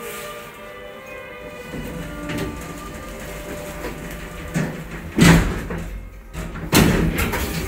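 Damaged stainless-steel sliding doors of a Schindler elevator cab moving, with two loud knocks about five and seven seconds in. Faint steady tones sit in the background.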